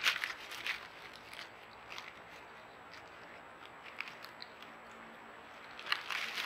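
Raccoons scuffling and moving about in dry grass and leaf litter: bursts of crackling, crunchy rustling at the start and again near the end, with scattered small ticks between.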